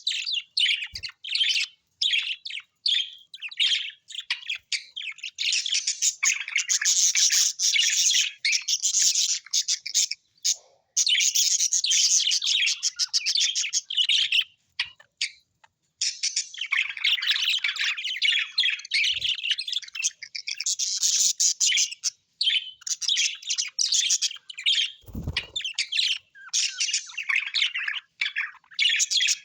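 Birds chirping and twittering in a dense, nearly continuous chatter of quick high notes, pausing briefly about ten and fifteen seconds in. A brief low thump comes about twenty-five seconds in.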